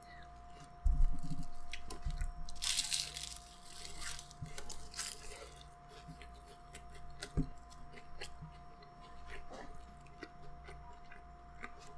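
A person biting into a flaky, crispy pastry egg tart and chewing it: a thump about a second in, a crunch of the pastry around three seconds, then softer chewing with small crackles.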